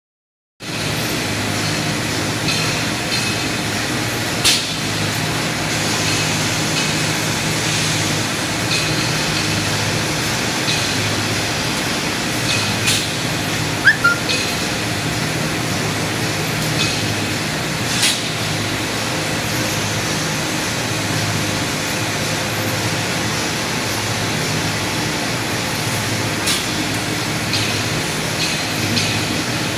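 Two-head CNC glass drilling machine running: a steady mechanical hum, broken by sharp clicks or knocks every few seconds.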